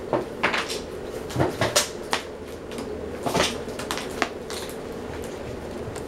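Several ceiling fans, the Hunter Silent Breeze among them, running on high with a steady hum. Over the hum come irregular sharp clicks and knocks, thickest in the first two seconds and again about three and a half seconds in.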